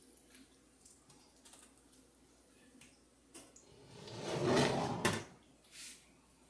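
Light clicks and taps of a metal fork against a frying pan and plate, then a louder rustling scrape lasting about a second, about four seconds in.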